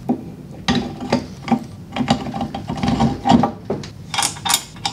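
Irregular metallic clicks and knocks from a Taig micro mill's column being seated on its mounting shaft, as its 22 mm hold-down nut is spun on and snugged by hand. A quicker run of lighter, brighter clicks comes near the end.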